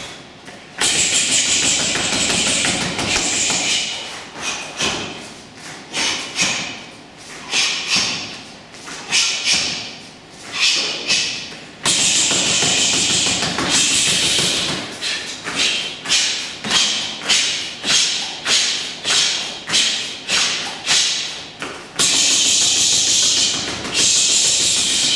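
Punches smacking a handheld focus mitt. Dense rapid flurries come three times, and between them separate sharp hits and thuds land about twice a second.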